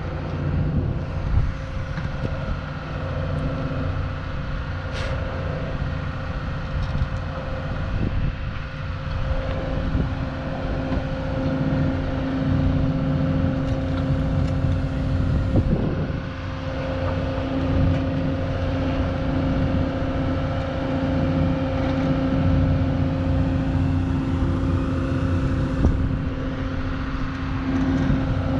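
Volvo FMX truck's diesel engine running steadily: a low rumble with a steady hum over it.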